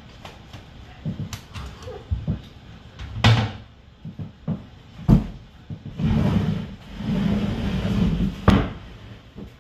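Kitchen clatter: a string of knocks and thumps like cupboard doors and things being set down, the loudest about five seconds in. Then a few seconds of continuous rummaging noise, ending in another sharp knock.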